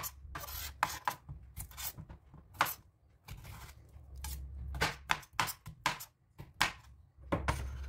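Kitchen knife chopping cucumber on a bamboo cutting board: a run of sharp, irregular knocks as the blade cuts through and meets the wood, about two a second, with a short lull partway through.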